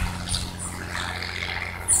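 Single-engine light propeller airplane droning steadily overhead at a distance, a low even hum. A brief high chirp comes near the end.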